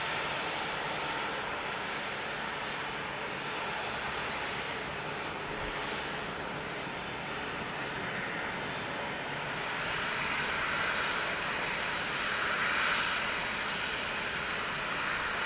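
Jet airliner engines running steadily, an even rushing noise with a faint high whine. The sound swells between about ten and thirteen seconds in as a rear-engined twin-jet heads into its takeoff roll.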